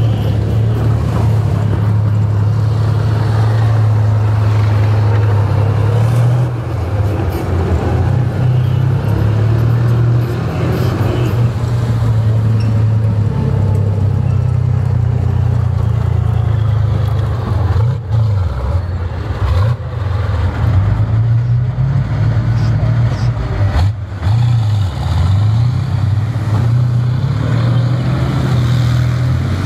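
Diesel engines of tracked armoured vehicles, a BMP infantry fighting vehicle and T-55 tanks, running loud and steady as they drive on a dirt track, their engine note dipping and rising a few times in the second half.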